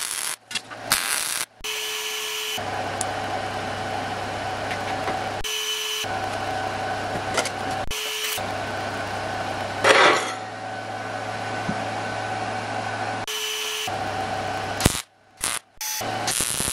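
Short bursts of MIG welding on the steel door hinge, cut together with a long stretch of steady machine drone with a low hum.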